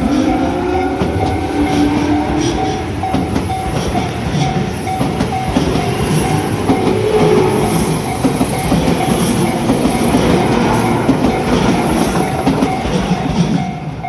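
Tobu Tojo Line electric commuter train running past close by, a loud steady rumble of wheels on rails with clattering over the joints and a rising motor whine near the start. The level-crossing warning bell rings steadily underneath the whole time.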